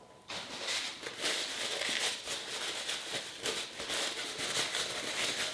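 Cutlery scraping and clinking against a plate in quick, irregular strokes as the last of a meal is eaten.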